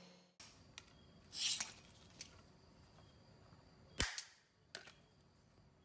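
Copper-clad circuit board being broken by hand: a few light clicks and a brief scrape, then one sharp crack about four seconds in as a strip snaps off.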